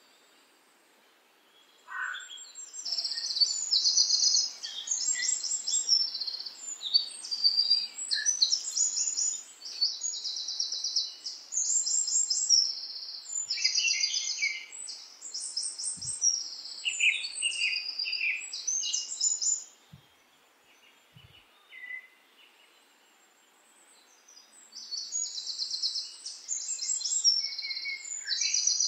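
Songbirds singing: rapid, high-pitched trills and chirps in phrases of about a second, one after another, with a lull near the start and another about two-thirds of the way through.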